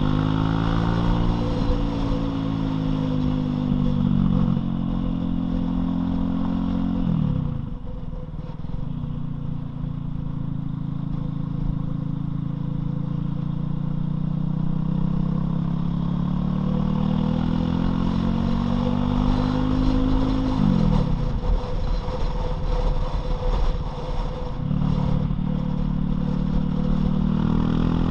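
Loncin LX250-12C motorcycle engine under way. The revs climb, drop sharply about seven seconds in, hold steady, climb again and drop sharply again about twenty-one seconds in, then pick up.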